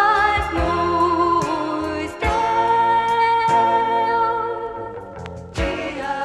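Christian gospel song from a vinyl LP: held melody notes with singing over bass and a slow drum beat.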